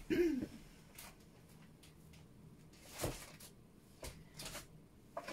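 A short hum at the start, then quiet handling noises of objects being moved: a click about a second in, a louder knock or rustle around three seconds in, and a softer rustle a second later.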